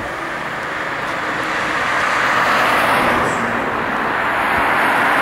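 Cars passing on a road, with a rushing tyre noise that swells as one goes by about two and a half seconds in and another near the end.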